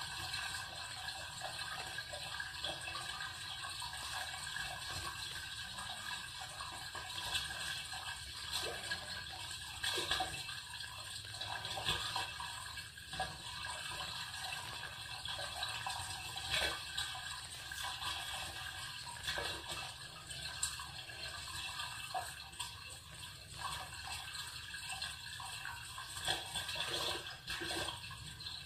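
Water splashing and sloshing in the sewer below a bathroom floor drain, heard up through the steel grate, with faint irregular knocks now and then.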